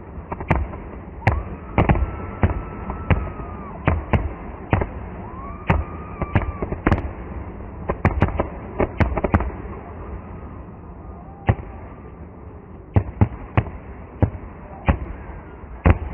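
Fireworks display: aerial shells bursting in an irregular series of sharp bangs, some in quick clusters of two or three.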